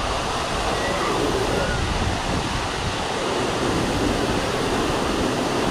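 A waterfall about 38 metres high pouring steadily, a constant loud rush of falling water.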